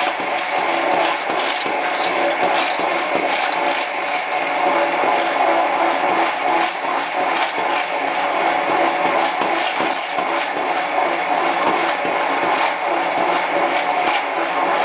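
Handheld immersion blender running steadily in a glass measuring cup, emulsifying soy milk as oil is drizzled in for eggless mayonnaise. Scattered sharp clicks sound over the motor's steady whine.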